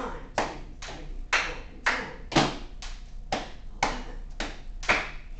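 A small group clapping in rhythm as an ensemble percussion piece, about two sharp claps a second in an uneven, changing pattern.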